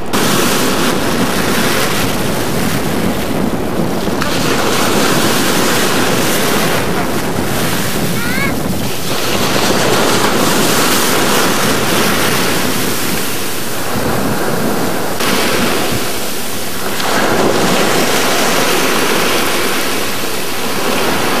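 Sea surf washing on a shingle beach, with wind rumbling on the camcorder microphone; a steady, loud rush of noise that swells and eases.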